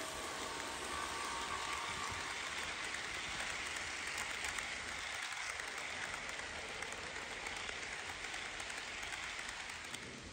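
Model freight train's cars rolling past on sectional track: a steady, dense rattle of many small wheels clicking over the rails, dropping away near the end.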